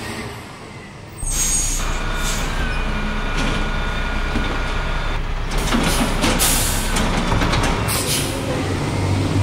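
Garbage truck sound effects. About a second in there is a sudden air-brake-like hiss, and a steady low engine rumble starts. A whining tone runs for a few seconds, then a run of clanks and hisses follows as the truck's arm lifts and empties the bin.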